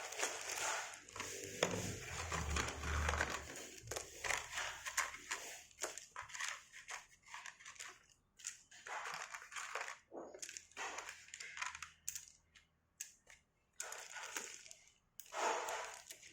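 Plastic component bags crinkling and rustling in irregular bursts as small board-game pieces are handled and unpacked, with a low bump about two to three seconds in.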